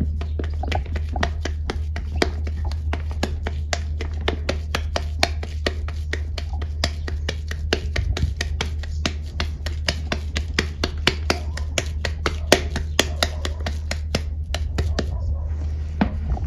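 Hands squeezing and pressing damp, crumbled white powder into a ball, giving a dense run of fine crunchy crackles. A steady low hum sits underneath.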